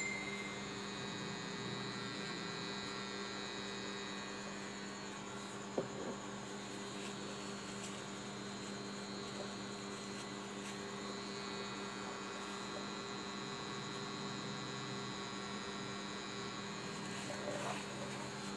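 Electric tattoo machine running with a steady hum as it works ink into the skin, with one short tap about six seconds in.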